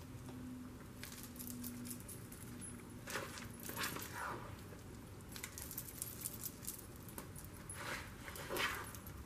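A spoon scraping and scooping mashed potatoes in a plastic mixing bowl, with metal bangle bracelets on the wrist jingling. It comes as a few faint, brief strokes with quiet between them.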